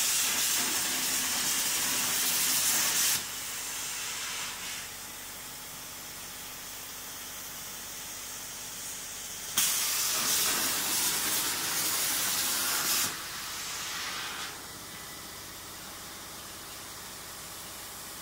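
Plasma cutter on a CNC table cutting steel plate: two cuts of about three and a half seconds each, the first at the start and the second about nine and a half seconds in. Each starts suddenly with the arc's loud, even hiss and falls to a softer hiss for a second or so when it stops, with a lower steady hiss between the cuts.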